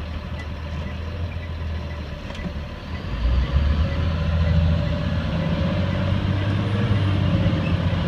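Diesel engine of a 2005 Blue Bird Vision school bus, heard from the driver's seat, running low and steady, then growing louder about three seconds in as the bus pulls out and accelerates.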